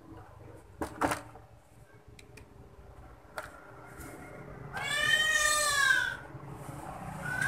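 A cat meows once, a long call that rises and falls in pitch, about five seconds in. Before it come a few sharp clicks.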